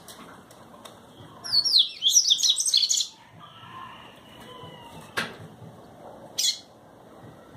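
Papa-capim seedeater singing: a fast, chattering run of high notes lasting about a second and a half, then two short sharp calls a little over a second apart.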